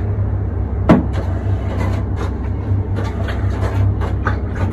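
A steady low mechanical hum, with one sharp knock about a second in as a clay hookah bowl is set down on a steel counter, followed by a few faint handling clicks.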